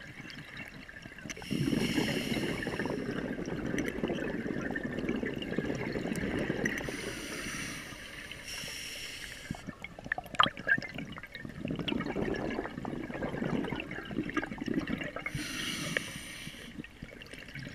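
Scuba diver breathing through a regulator underwater: a hissing inhalation, then a longer bubbling, rumbling exhalation, repeating over two or three breaths.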